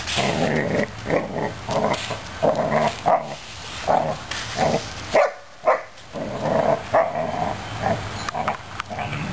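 Newfoundland puppy barking in a string of short barks, about two a second, with a brief break about five seconds in, while it plays at attacking a push broom.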